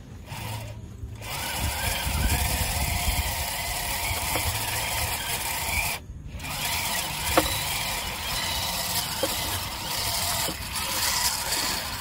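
Large overhead game-fishing reel on a bent shark rod with its drag and clicker buzzing steadily as a hooked shark strips line. The buzz breaks off briefly about six seconds in, then carries on.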